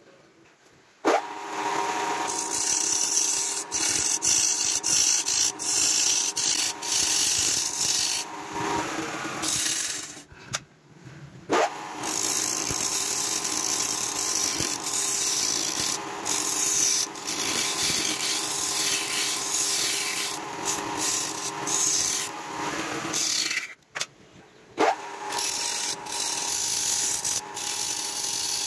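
Hand-held turning tool scraping and cutting a spinning wooden ring on a lathe, a loud steady rasping hiss over the lathe's running hum. The sound breaks off briefly twice.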